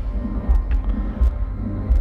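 Live rock band music from an outdoor stage, bass and drums with a steady beat.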